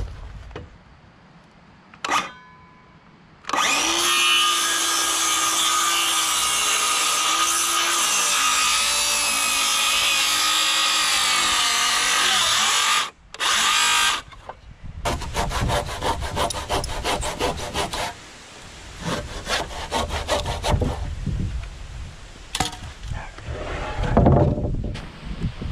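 A DeWalt cordless circular saw cuts through a 2x6 rafter, a plumb cut for a bird's mouth notch. It gives a brief blip, then runs steadily through the board for about ten seconds, with a second short cut just after. After that come quick, even strokes, most likely a handsaw finishing the notch.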